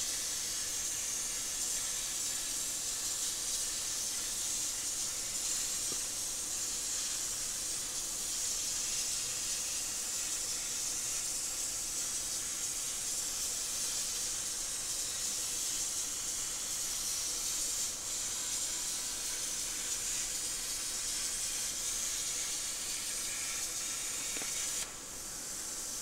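CNC plasma torch cutting 22-gauge sheet steel: a steady high hiss of the arc and its air, which cuts off about a second before the end as the cut finishes.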